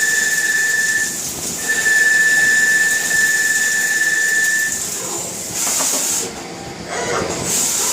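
Jyoti DX200 CNC turning centre machining a bearing housing: a steady high-pitched whistle from the cutting, breaking off briefly about a second in and stopping near five seconds in, followed by short hissing bursts.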